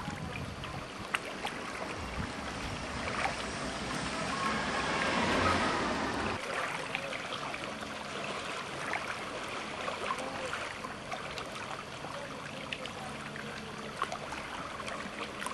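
Water rushing and splashing, swelling to its loudest about five seconds in. Wind buffets the microphone until it drops away suddenly about six seconds in.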